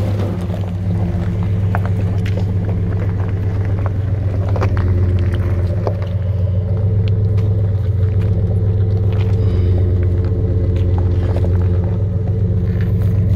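Lifted Ram 1500 pickup's engine running at a low, steady rumble as the truck crawls slowly up a rocky trail, with scattered clicks and crunches of stones under its mud-terrain tyres.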